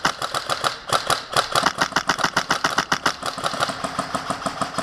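Airsoft rifle firing a long fully automatic burst, a fast even stream of about ten shots a second.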